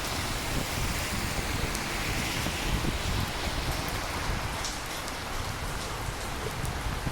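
Steady rain falling: an even hiss with individual drops ticking through it, over a low rumble.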